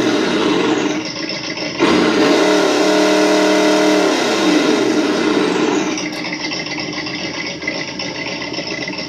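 Simulated engine sound from an ESS-One RC engine sound unit, played through its speaker on the default sound as the throttle is worked. It revs up sharply about two seconds in, holds high, then falls back to a steadier idle about six seconds in.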